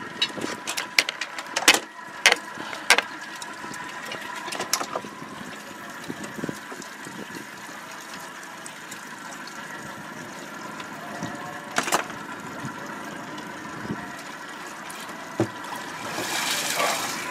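Boat engine idling in neutral with a steady hum. Several sharp knocks come in the first few seconds as the crab trap line is hauled in over the side, and water splashes near the end as the trap is lifted out of the water.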